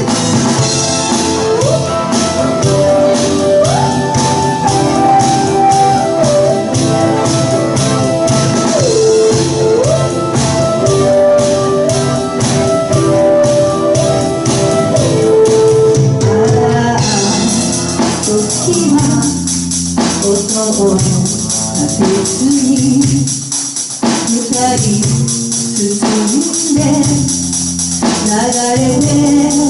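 Live pop band playing a cover song: singing over drums, bass and keyboard, with a busy cymbal or tambourine beat. About two-thirds of the way through, the arrangement turns sparser.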